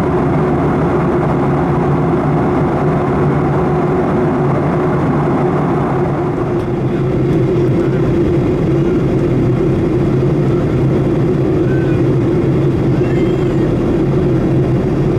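Steady cabin noise of a Boeing 737-800 in cruise: a constant rush of airflow with a low drone from its CFM56 engines, heard from a window seat by the wing.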